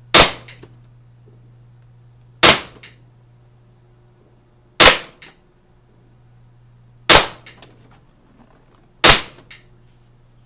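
VFC Glock 17 Gen 4 gas blowback airsoft pistol firing five slow, aimed shots about two seconds apart. Each shot is a sharp crack followed by a fainter click.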